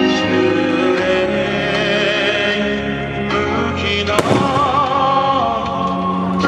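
A song with a singing voice plays while fireworks burst. One sharp firework bang comes about four seconds in and is the loudest moment.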